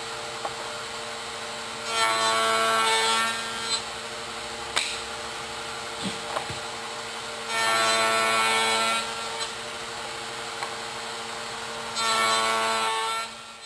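Table-mounted router, slowed to about 12,000–13,000 RPM, running steadily with a cope cutter as boards are fed end grain first: three louder stretches of cutting noise as the wood passes the bit. Near the end the motor is switched off and winds down.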